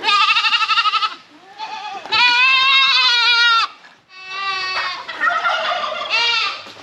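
Goats bleating loudly, about five quavering calls in a row, the longest one in the middle, while a goat is caught and held for handling.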